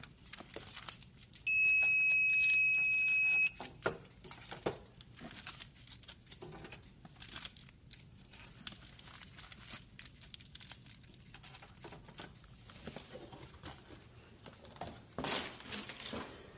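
A steady electronic beep, held for about two seconds, starting about one and a half seconds in. Packaging crinkling, with light clicks and knocks, runs through the rest of the stretch as snacks are handled.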